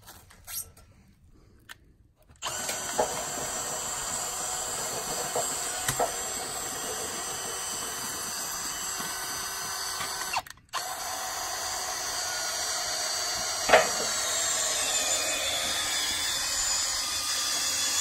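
Cordless drill running steadily under load, driving a homemade log turner that rolls a heavy log on a sawmill bed. It starts about two seconds in, drops out for a moment about halfway, then runs on, with a few knocks, one sharp and loud about two-thirds of the way through.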